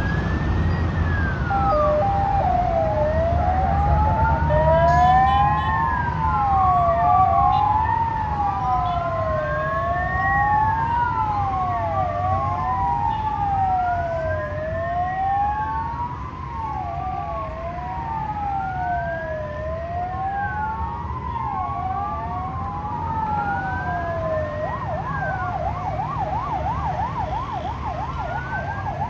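Two emergency-vehicle sirens wailing at once, each rising and falling slowly and out of step with the other, over a steady rumble of street traffic. About 25 seconds in, one switches to a fast yelp.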